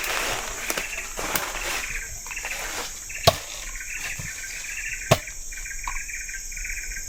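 Insects chirping in a steady, pulsing chorus, with two sharp knocks, one about three seconds in and another about five seconds in.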